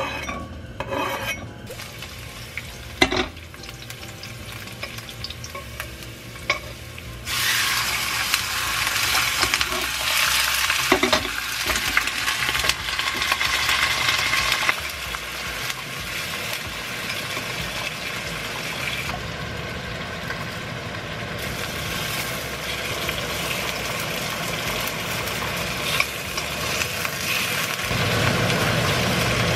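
Squid and sliced garlic frying in oil in a wok, with a few knocks of utensils on the pan in the first seconds. About seven seconds in, the frying jumps to a loud sizzle as the oil spatters. After about seven more seconds it settles to a steadier, quieter sizzle.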